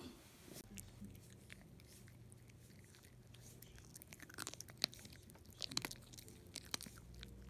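Maltese dog chewing a small hard morsel, which looks like a treat, with quiet, irregular crisp crunching bites starting about halfway through.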